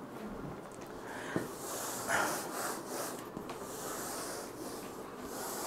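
Handheld whiteboard eraser scrubbing across a whiteboard in repeated back-and-forth strokes, starting after a light knock about a second and a half in.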